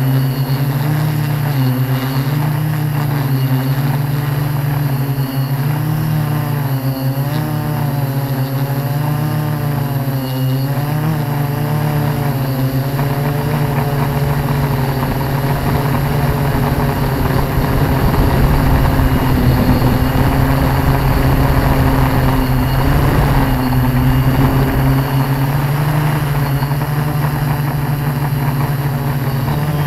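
Tarot 680 Pro hexacopter in flight, its electric motors and propellers humming close to the onboard action camera. The pitch wavers up and down as the motor speeds change, with more wind rush in the second half.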